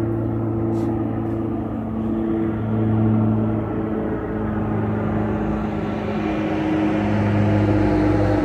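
Saab 340B twin-turboprop airliner climbing out after takeoff: a steady propeller drone with several held low tones, growing louder near the end.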